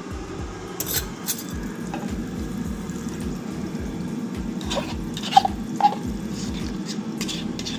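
A steady watery kitchen sound, with scattered light clicks and two sharp clinks about five and a half and six seconds in.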